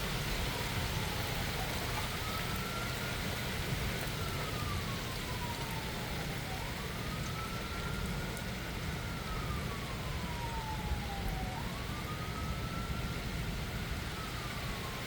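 A siren wailing in slow cycles, each rising quickly and then falling away slowly, about three times over steady rain.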